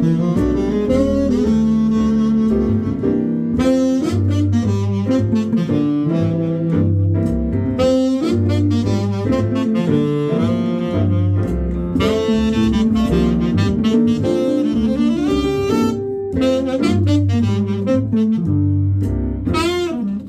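Drumless jazz quartet playing live: a saxophone lead over guitar, piano and double bass, with no drums.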